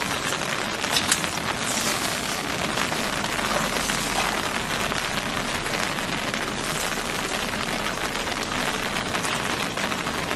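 Steady rushing hiss of floodwater flowing down a narrow canal, with a couple of short, sharp sounds about a second in.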